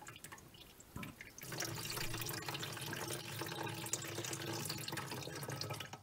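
Water draining out of a freshly removed plastic sink-trap U-bend into a plastic bucket. It starts about a second and a half in as a steady trickle and stops just at the end.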